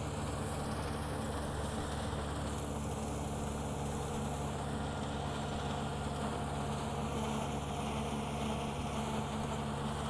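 Rice combine harvester running steadily as it cuts standing rice: a constant engine hum that holds the same pitch and loudness throughout.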